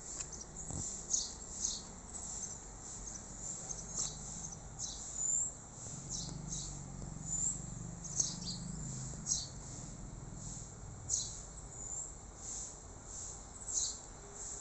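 Small birds chirping: a quick, irregular series of short, high chirps, some sliding in pitch.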